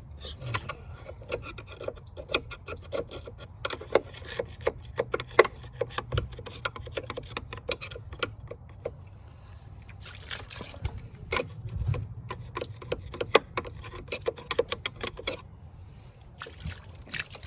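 Water trickling and dribbling over corroded car-battery cable ends as they are rinsed, with many irregular small taps and clicks.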